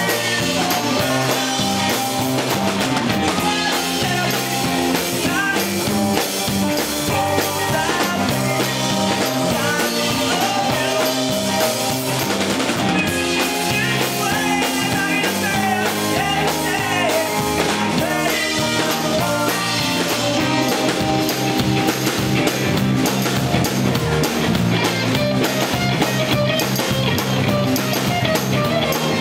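Rock band playing live: electric guitar, bass guitar and drum kit, with a male singer.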